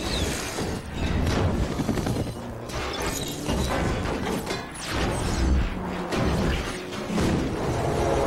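Sound-effects montage of heavy mechanical clanks and crashing metal impacts, one after another, layered over music on a television truck commercial's soundtrack.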